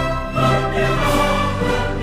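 Orchestral background music with sustained string chords.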